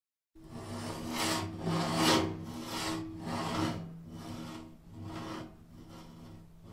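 Rhythmic scraping strokes, about one every 0.8 seconds, starting suddenly and fading away over the last few seconds.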